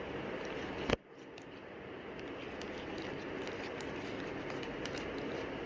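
A plastic spoon stirring clear slime in a plastic bowl: faint sticky ticks over a steady hiss, with one sharp click about a second in.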